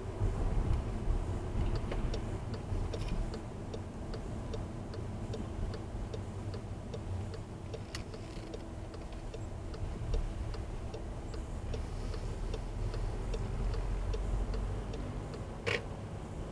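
Car's turn-signal indicator clicking in an even, steady rhythm inside the cabin over the low rumble of the engine and tyres on a wet road. There is a sharp knock about eight seconds in and a louder one near the end.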